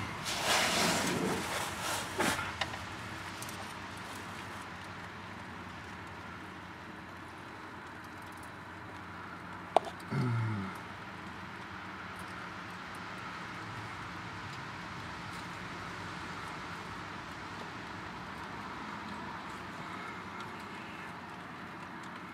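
Hand-work noises at a clutch slave cylinder fitting under a truck: rustling and scraping for the first few seconds, then a low steady background. About ten seconds in there is a sharp click, followed at once by a short sound falling in pitch.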